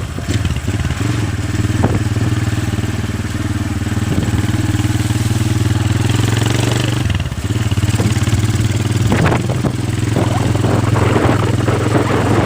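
Motorcycle engine running steadily while riding, with a brief drop in engine sound about seven seconds in before it picks up again.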